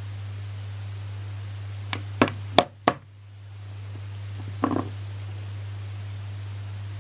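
Samsung Galaxy Note 9 S Pen touching the phone's display: four sharp clicks about two seconds in, then a short rattling cluster near five seconds, the rattle of the pen's loose button. A steady low hum runs underneath.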